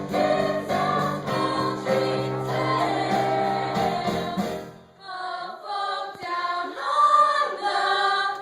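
Stage-musical cast singing together as a chorus over band accompaniment. About five seconds in, the low accompaniment drops away and higher voices sing on with little backing, then break off near the end.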